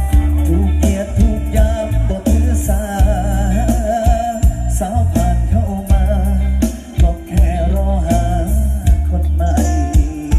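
Loud live band music heard through a camera microphone: heavy pulsing bass under a wavering melody line, an instrumental stretch between sung verses.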